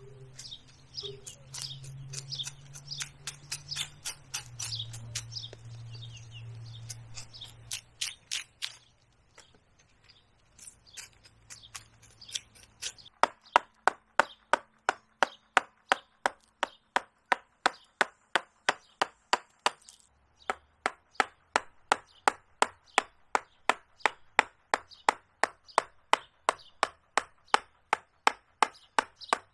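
Mallet blows driving a carving gouge into the wood of a living tree: lighter, irregular taps at first, then from about halfway a steady run of sharp, even strikes, about two to three a second.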